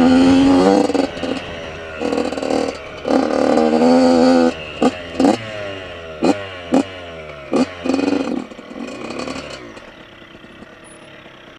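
Yamaha YZ85 LW's two-stroke 85 cc single revving in bursts of throttle, then given several short, sharp blips with the pitch falling away after each. The engine note dies down near the end.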